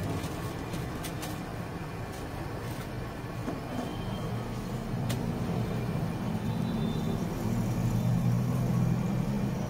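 Steady low rumble of passing street traffic, growing a little louder in the second half, with a few faint clicks.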